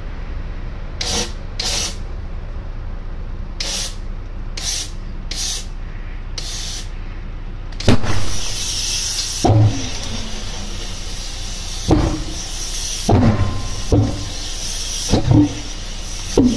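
Pulsejet being started: short puffs of starting air at first, then from about eight seconds in a steady hissing air blast broken by irregular loud bangs as the engine fires and fails to settle into running, over a steady low hum. The hard start is one the owner puts down to fuel pumps stuck at one speed by a bad motor controller and a wrongly sized air starting nozzle.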